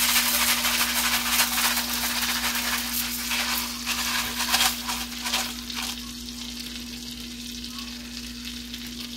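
Hot melted butter sizzling in a frying pan as dry Rice-A-Roni rice-and-pasta pilaf mix is poured in from its box, crackling sharply as the grains hit the fat. The sizzle settles to a quieter steady frying after about six seconds, over a faint steady low hum.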